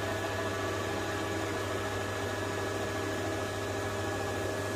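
Drill press motor running steadily, a core drill slowly cutting down into a rubber block: a constant mechanical hum with several steady tones.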